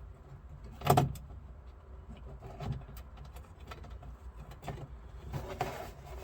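Handling noises from a glove box liner being worked into a car's dash while its top screws are started: one sharp knock about a second in, then light clicks and a short rustle near the end.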